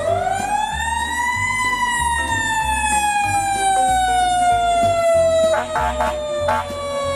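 Fire engine siren winding up: the pitch rises quickly for about a second and a half, then slowly falls.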